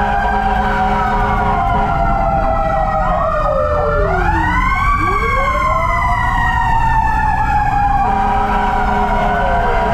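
Fire truck sirens wailing from inside the cab of a responding fire engine. Several siren tones rise and fall over one another, with a steady low engine drone underneath.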